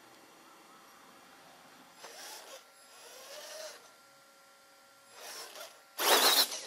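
Axial XR10 rock crawler's electric motor and geared drivetrain whirring in short bursts that rise in pitch, with its knobby tyres scuffing on the wooden board as it pivots with the front axle held by the DIG brake. The loudest, harshest burst comes near the end.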